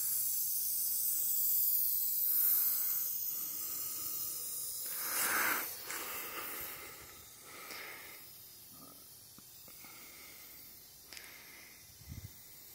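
Aerosol spray-paint can hissing in a series of bursts as a coat of paint goes on, louder in the first half and fading after about six seconds.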